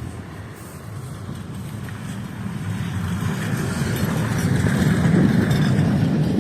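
A road vehicle passing, its rumbling noise growing steadily louder over several seconds.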